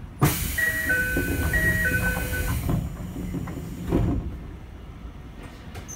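Two-tone door chime of a Toei Series 5300 subway car sounding twice, high then low, over a loud hiss as the doors close, then a thud about four seconds in as the sliding doors shut.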